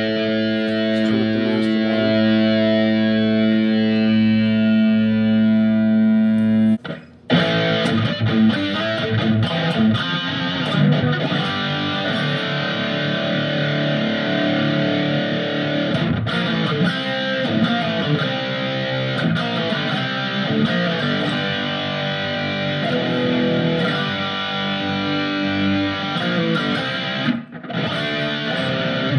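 Electric guitar played through the Sonicake Matribox II Pro multi-effects processor on its 'Heavy Metal' preset, a high-gain distorted tone. A chord is held ringing for about seven seconds and cuts off briefly, then quick riffing with many fast note changes follows, with a short break near the end.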